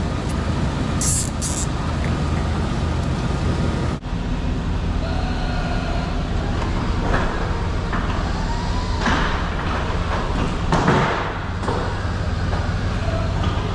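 Idling pickup plow truck engine with a steady low hum, with a few short hissing and knocking noises over it.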